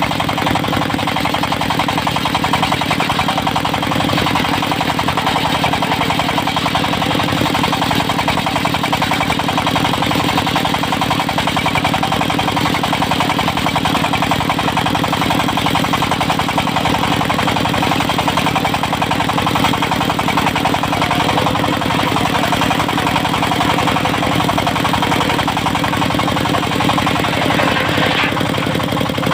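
Diesel engine of a mobile circular sawmill running steadily, with a fast knocking pulse.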